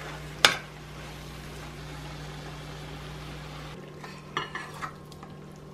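A metal fork clinks once against a stainless steel saucepan about half a second in, then a faint steady low hum. Near the end, a few light taps and scrapes as the stir fry is tipped from the pan into a bowl.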